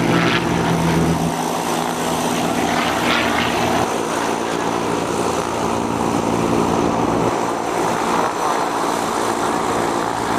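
Propeller aircraft engine running steadily overhead, a continuous drone that shifts slightly in pitch just over a second in.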